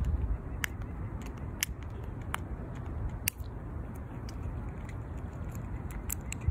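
Fox squirrel gnawing food held in its paws: a few sharp, irregular crunching clicks spaced about a second apart, over a low steady rumble.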